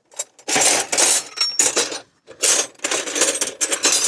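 Metal spanners and hand tools clattering and clinking against each other as a tool box is rummaged through, in two long spells of rattling.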